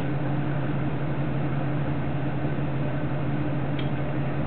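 Steady low machine hum that holds one pitch without rising or falling, with a faint click near the end.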